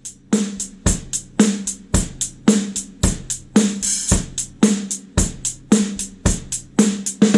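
A drum kit groove played for a snare sound test, featuring a Monolith fiberglass snare drum, with kick drum and cymbals in a steady beat of about two hits a second; the snare rings on after each stroke.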